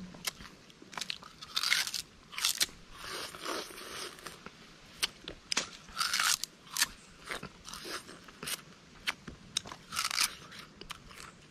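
Peeled sugar cane being bitten and chewed: irregular crisp crunches of the fibrous stalk, with a few louder bites about two, six and ten seconds in.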